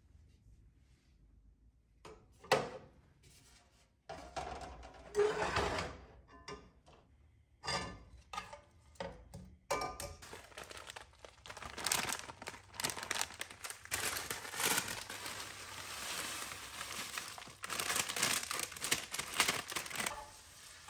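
Metal tongs clinking and scraping in a cast-iron skillet as soy curls and green beans are stirred, with knocks of the pan against the gas stove's grate. A plastic bag crinkles near the end.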